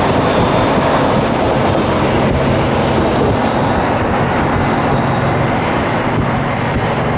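A car driving steadily at speed: a constant low engine drone mixed with road and wind noise, heard from inside a moving car.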